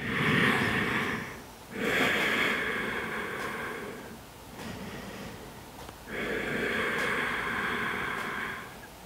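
A person breathing deeply and audibly during a yoga stretch: three long, slow breaths with short pauses between them.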